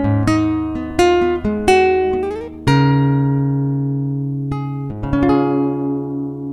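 Acoustic guitar music: a few plucked notes with a short upward slide, then a chord struck about two and a half seconds in and left to ring, and another struck near five seconds that dies away.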